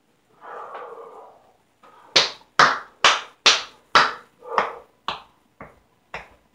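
A run of about nine sharp hand slaps, roughly two a second, loudest at first and then growing fainter and further apart. Before them comes a quiet, breathy rush lasting about a second.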